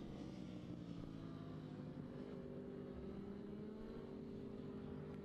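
Racing motorcycle engines at a distance, a faint steady drone of several engine tones shifting slowly in pitch.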